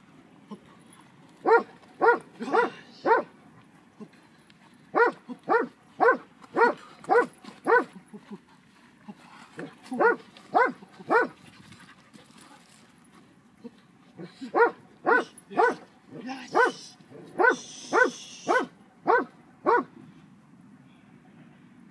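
Belgian Tervuren barking in four bursts of quick barks, about two a second, with pauses of a second or two between bursts.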